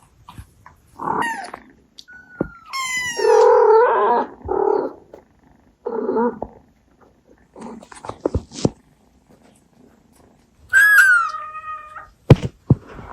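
Abyssinian mother cat making a series of short meows and murmured calls to her kittens. The longest and loudest call comes about three seconds in and falls in pitch; a higher, steadier call comes near the end, followed by a couple of sharp clicks.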